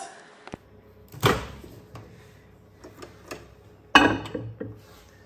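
A ceramic bowl being handled into a microwave and set down on its glass turntable. There is a knock about a second in, then a sharp clink with a short ring about four seconds in as the bowl goes down, followed by a few small clatters.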